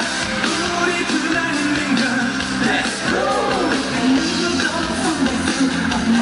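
Live K-pop song with singing over a loud, steady band track, heard through a concert sound system.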